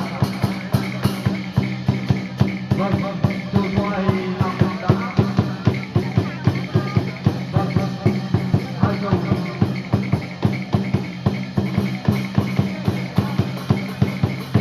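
Music with a quick, steady percussion beat over a held low drone, with a wavering melody line above.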